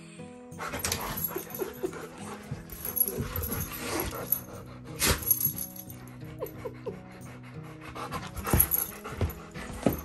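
Two dogs play-wrestling: panting and scuffling, with a few sharp louder sounds about halfway and near the end. Background music plays throughout.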